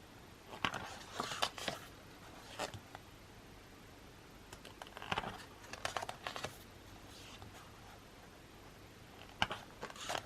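Paper and card of an album's photobook being handled and its pages turned: soft rustles and light taps in several short bursts.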